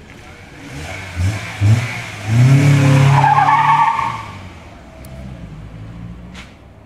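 Honda Accord with a swapped-in K24A2 2.4-litre four-cylinder engine, blipped twice and then accelerating hard from a standstill, its note climbing for about two seconds with a short tyre squeal, then fading as the car pulls away.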